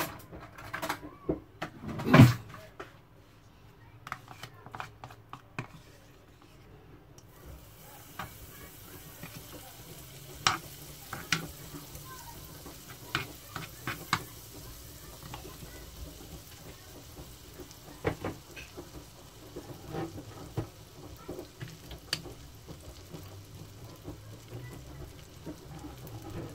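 Butter melting and sizzling in a non-stick frying pan: a steady high hiss sets in about seven seconds in and keeps going. Sharp knocks and clicks in the first few seconds, and scattered clicks of a utensil against the pan through the sizzling.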